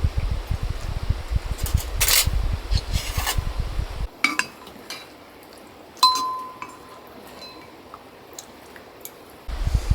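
Tableware clinking: a few light clicks and knocks, then about two seconds in one sharp clink that rings on for about a second. A low rumbling noise with scattered ticks is heard in the first few seconds, stops abruptly, and comes back near the end.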